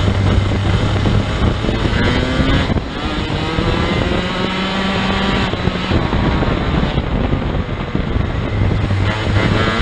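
Several racing kart engines running together in a close pack, their pitches overlapping and rising and falling as the karts brake and accelerate, heard loud from on board one kart.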